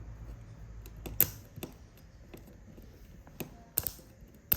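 Number wheels of a suitcase combination lock clicking as they are turned by hand: a handful of sharp, separate clicks, the loudest about a second in and just before the end.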